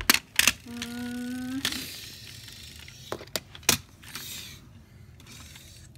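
A voice hums one steady, flat, horn-like note for under a second, about a second in, mimicking a toy car honking. It is set among sharp clicks and clacks from handling plastic toys.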